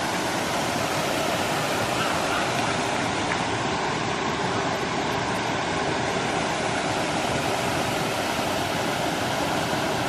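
Waterfall pouring steadily into a pool: an even, unbroken rush of falling water.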